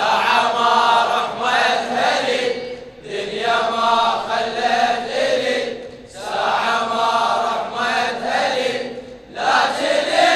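Men chanting a Shia latmiyya lament in long melodic phrases of about three seconds each, with short breaks between them.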